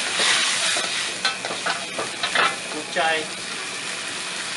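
A metal spatula stirs and scrapes through kway teow noodles, bean sprouts and prawns frying in sauce in a hot wok, with a steady sizzle. Several sharp clinks and scrapes of the spatula against the wok come in the first few seconds.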